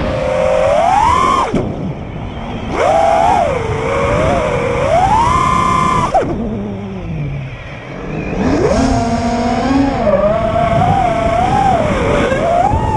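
A 5-inch freestyle FPV quadcopter's brushless motors (T-Motor LF40 2450Kv) whining with their propellers over a rushing hiss. The pitch rises and falls with the throttle and drops away sharply twice as the throttle is chopped, once about a second and a half in and again about six seconds in, then climbs again.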